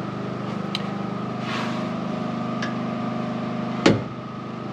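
A steady mechanical hum with a low, even drone and a faint higher whine. A single sharp knock about four seconds in, from a hand handling the metal chop saw.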